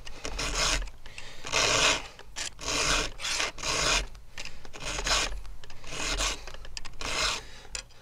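Round chainsaw file rasping across the cutters of a 3/8-pitch saw chain on a Stihl MS661, in a series of separate push strokes with short pauses between them, as the cutters are hand-sharpened.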